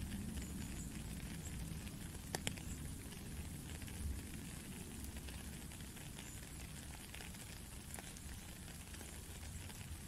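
A faint, steady hissing and crackling background noise with a low rumble underneath, broken by a sharp click a little over two seconds in.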